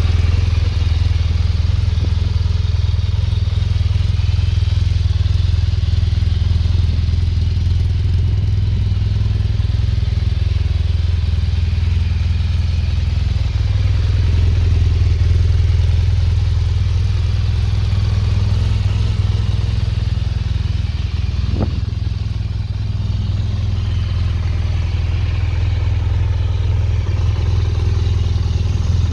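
BMW R1200GS Adventure's liquid-cooled 1170 cc flat-twin (boxer) engine idling steadily.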